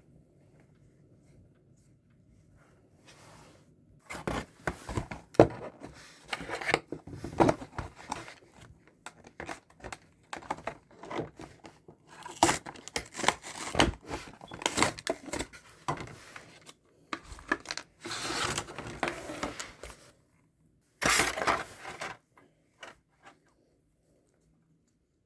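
Packaging being torn and crinkled by hand in irregular bursts of rustling and crackling, with short pauses, stopping a few seconds before the end.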